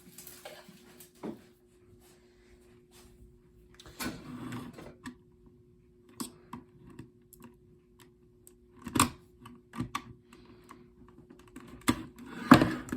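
Hands working at the alarm's packaging to pull it free: scattered clicks, knocks and brief rustles, loudest about nine seconds in and near the end, over a faint steady hum.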